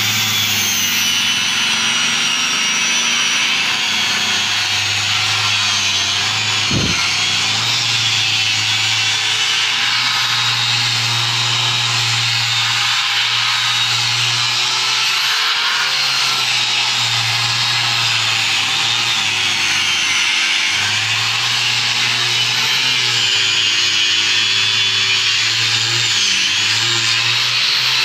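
Handheld angle grinder with a sanding disc running steadily while it sands a wooden door frame. Its high whine wavers slightly in pitch as the disc is pressed and moved over the wood, with one brief knock about seven seconds in.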